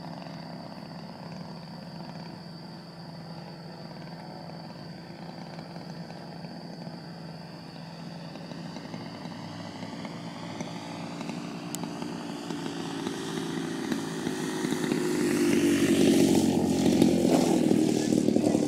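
Single-cylinder two-stroke gasoline engine (DLE 55cc) of a giant-scale RC aerobatic plane in flight: a steady buzz, faint while the plane is far off and growing louder as it comes in low. It is loudest as the plane passes close near the end, and its pitch falls as it goes by.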